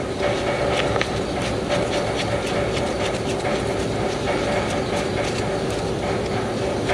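Mack dump truck's diesel engine idling steadily, with a light clatter.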